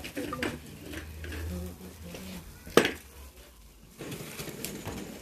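Metal barbecue tongs clinking against a charcoal grill grate and a plate as pieces of chicken are lifted off, with one sharp, loud clink a little past halfway.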